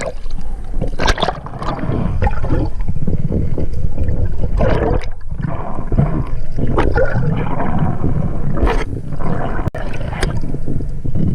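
Water sloshing and gurgling over a steady low rumble, with repeated splashes.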